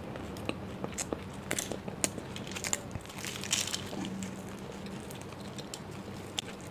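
Close-miked eating of a flaky pastry topped with crunchy sev: chewing with small crunches and crackles, and a fresh crunchy bite about three and a half seconds in.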